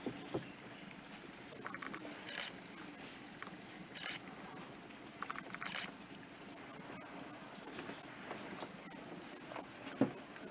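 Steady, high-pitched drone of rainforest insects, with short bursts of fast clicking chirps twice. A sharp knock sounds near the start and another near the end.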